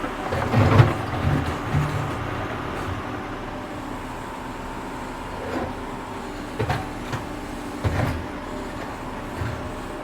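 Tractor engine running steadily while digging, with irregular heavy clunks and knocks of the working gear, busiest in the first second or so.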